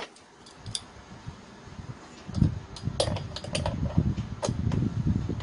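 Light, irregular metal clicks and taps of pliers working at a two-stroke engine's carburetor as its throttle valve is taken off, with low rubbing and bumping of gloved hands from about two seconds in.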